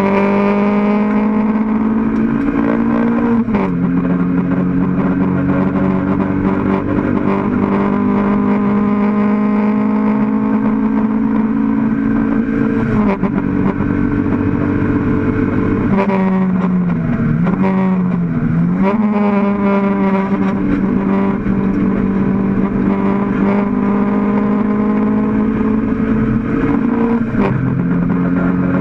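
Mk1 Toyota MR2 race car's mid-mounted four-cylinder engine heard from inside the cockpit, running hard under full throttle. Its pitch climbs steadily, then drops sharply at upshifts about three seconds in, near the middle and near the end. Around two-thirds of the way through, the revs dip and flare twice, as happens on downshifts while braking for a corner.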